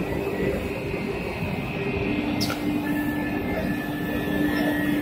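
Automatic-loading CNC wood-turning lathe running, with its dust extraction: a steady mechanical drone with a held hum and a faint high whine. A short sweeping sound comes about halfway through.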